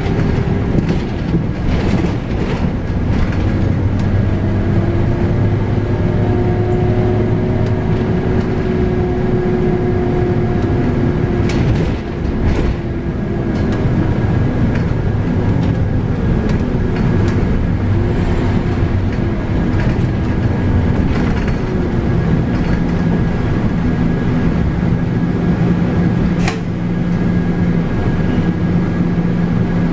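Scania K310UB bus running on the road, heard from inside the cabin: its 8.9-litre five-cylinder Scania DC9 diesel and ZF Ecomat six-speed automatic gearbox, with a whine that rises slowly for about ten seconds. A knock and a short dip come about twelve seconds in, and body rattles and clicks sound throughout.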